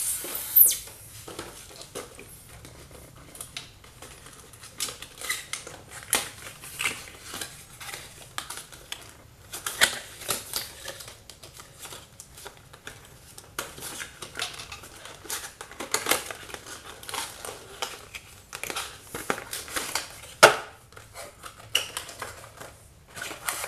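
Cardboard product box being opened and its inner packaging pulled out by hand: irregular clicks, scrapes and rustles of card. There is a short squeak about half a second in and a sharp knock about twenty seconds in.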